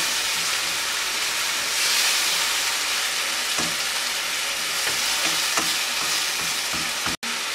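Chopped tomatoes and browned onions sizzling steadily in hot oil in a non-stick wok as they start to cook down into the masala, stirred with a plastic slotted spatula that gives a few soft scrapes against the pan. The sound cuts out for an instant near the end.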